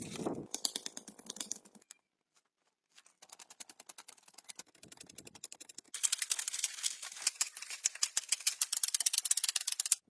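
A hoe chipping into a dry clay bank, its strikes coming as a fast, even clatter of ticks. The clatter is faint for a few seconds, then gets much louder about six seconds in.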